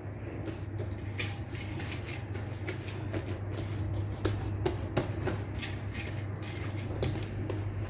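Many short rustles and light taps of food and utensils being handled, over a steady low hum.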